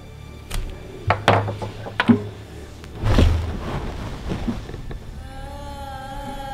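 A string of sharp knocks and clicks from the camera being handled and lifted off a wooden table, with a heavier thump a little after three seconds. About five seconds in, a steady held tone comes in.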